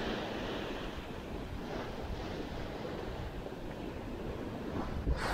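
Rough sea surf washing and breaking against a rocky shore, a steady seething rush that swells louder near the end, with wind rumbling on the microphone.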